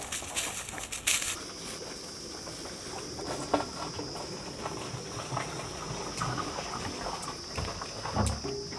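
Footsteps crunching through dry harvested stubble for about the first second, followed by a steady high-pitched tone with scattered small clicks.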